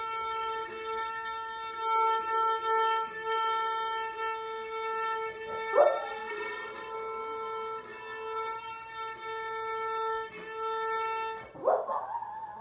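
A cello holds a long, steady bowed A4 on its A string while a Boston terrier howls along. The howl rises sharply about six seconds in and holds a high, wavering note above the cello, and a second howl starts near the end.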